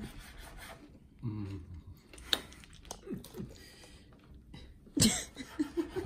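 Knife cutting through a tortilla on a wooden cutting board, with scraping, a sharp knock and brief murmured voices. About five seconds in comes a sudden breathy burst, like a laugh or sharp exhale, the loudest sound.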